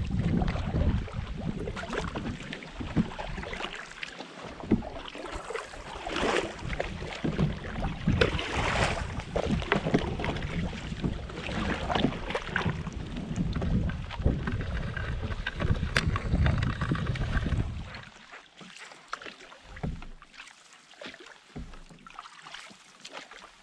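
Canoe paddling: paddle strokes splashing and dripping in the water, with wind rumbling on the microphone. About three-quarters of the way through the wind rumble drops away and the paddling sounds quieter.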